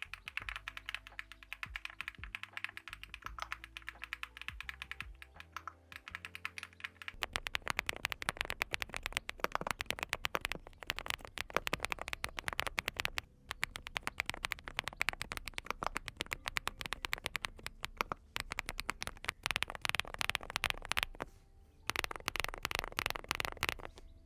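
Mechanical keyboard typed on fast and continuously: dense clacking keystrokes from Monstar Gear Halloween tactile switches in a full-aluminium hot-swap board, growing fuller about a third of the way in, with a brief pause near the end.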